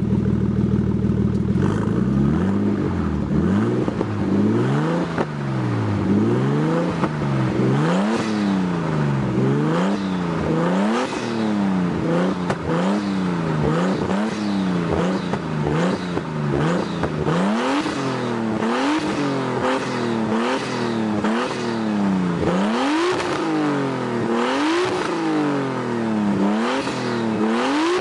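Modified Nissan Skyline R33 GTS-T's turbocharged inline-six idling, then revved over and over, its pitch rising and falling about once every second or two, the blips coming quicker near the end.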